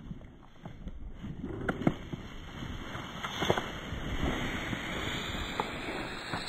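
Rice stalks rustling and swishing as someone pushes quickly through a ripening rice field, with wind on the microphone and scattered light ticks and snaps.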